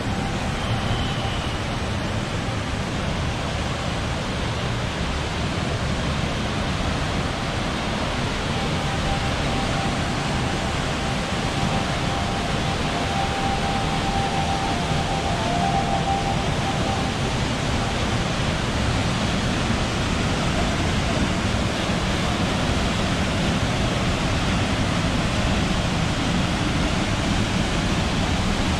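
Small waterfall pouring into a rock pool: a steady rush of falling water that grows a little louder toward the end.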